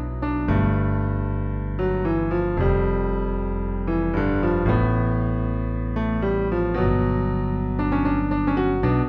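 Instrumental keyboard music: held piano chords that change every second or so, with quicker notes coming in near the end.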